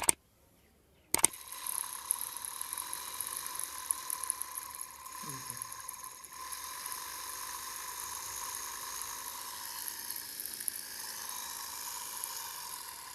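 A small electric motor switched on with a click about a second in, then running steadily with a high hiss and a constant whine.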